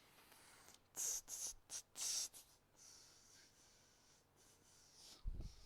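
A few short scratchy rustles between one and two and a half seconds in, then a single dull thump near the end.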